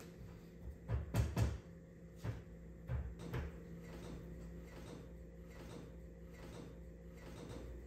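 Handling clicks and knocks from taking apart an LED TV's backlight assembly: a quick cluster of several clicks about a second in, then a few scattered ones up to about three and a half seconds, over a faint steady hum.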